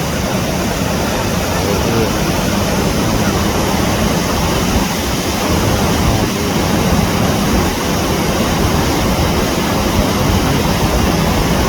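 Waterfall on a creek: rushing water, a loud steady roar.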